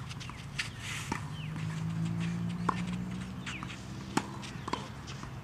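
Tennis balls being struck and bounced on the clay courts: a handful of sharp pocks at uneven intervals, with a low hum swelling and fading in the middle.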